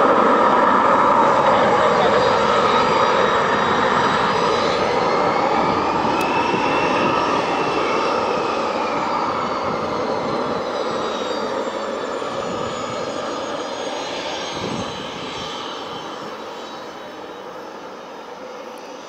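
Fixed-wing aircraft engines, loud at first and fading steadily as the plane moves away, with high whining tones that rise and fall in pitch in the middle.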